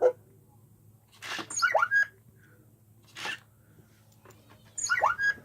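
A WowWee Roboquad robot toy's speaker playing electronic creature sound effects: a hissing burst followed by quick rising chirps, about a second in and again near the end, with a shorter hiss between. A sharp knock sounds at the very start.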